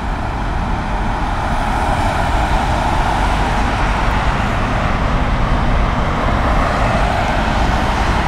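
Boeing 777F jet engines, GE90 turbofans, running at taxi power as the freighter rolls away, heard from behind as a steady rushing noise that grows a little louder after a couple of seconds.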